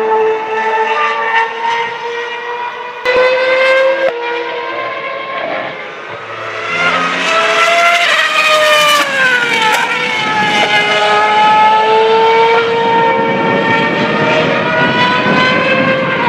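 2012 Formula One cars' 2.4-litre V8 engines running at high revs on track, their pitch stepping with gear changes. About eight to ten seconds in one car sweeps past and its pitch falls steeply as it goes by.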